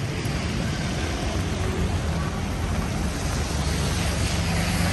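Steady rainy city street noise: road traffic with a low engine rumble and a constant hiss of rain and wet tyres.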